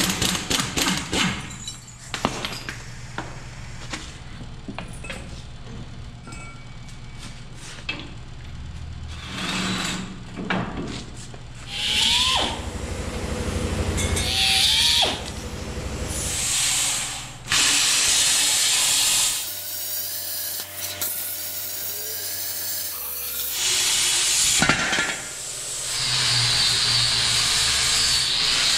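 Metal shop work on a car frame: a quick run of sharp knocks, then power tools cutting and grinding steel in bursts that start and stop.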